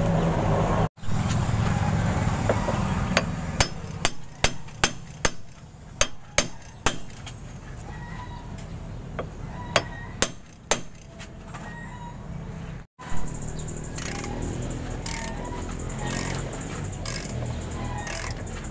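Hammer striking a steel socket and extension bar held against the front hub of a Bajaj RE three-wheeler, driving the new axle bearing home. About a dozen sharp metallic taps come in quick runs, mostly between about three and eleven seconds in.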